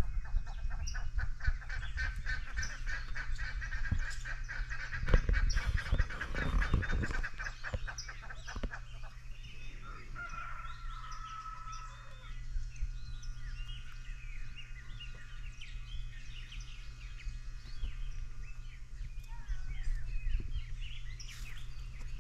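Farm poultry calling: a long run of rapid, harsh, repeated calls for the first several seconds, one held note around the middle, then many short high chirps. A steady low hum runs underneath.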